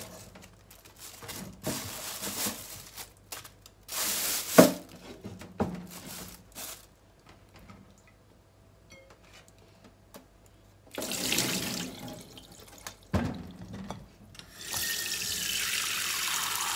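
Kitchen tap running into the sink, briefly about eleven seconds in and then steadily near the end, its pitch falling as it runs. Before that come scattered knocks of potatoes and a bowl being handled on the counter.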